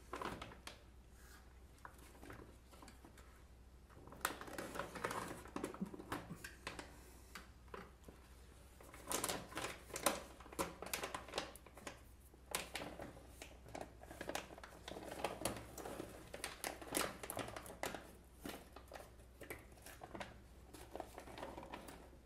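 Crinkling and crackling of a packaged popcorn bag being handled and opened, with popcorn pieces rustling as they are taken out. The crackles come in irregular bursts, starting about four seconds in and busiest through the middle.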